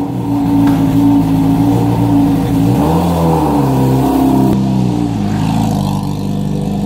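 Yamaha R6 sport bike's inline-four engine running, then revving as the bike pulls away, its pitch rising and falling in steps from about three seconds in.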